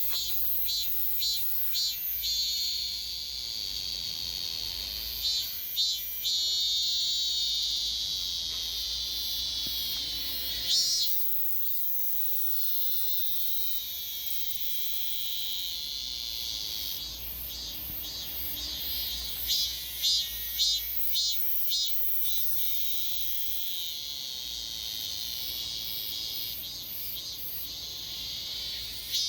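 Korean robust cicada (chammaemi, Hyalessa fuscata) singing. Runs of short, rhythmic pulses about three a second swell into a long, steady, high buzz lasting several seconds, and the cycle repeats.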